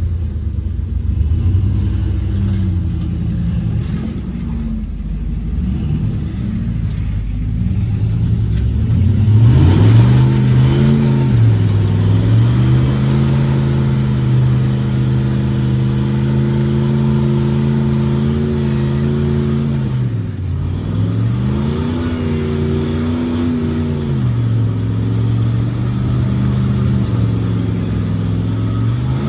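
Off-road truck engine working up a trail: uneven low running at first, then revving up about ten seconds in and holding steady revs, dropping sharply about twenty seconds in before revving back up and settling.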